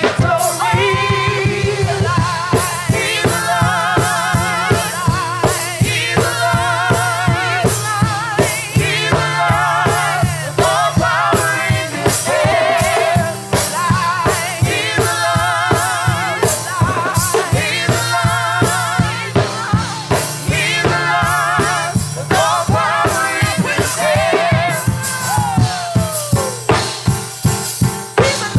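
Live gospel praise music: singers holding wavering notes over a drum kit keeping a steady beat and a sustained bass line.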